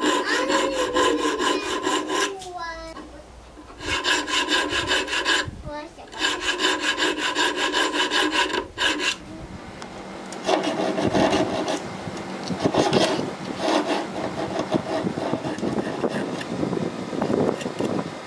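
Round needle file rasping in the notches on the spine of a 4 mm N690 stainless steel knife blade. For several seconds at a time the file chatters quickly and the steel rings in steady tones; from about halfway on come rougher, scratchier file strokes.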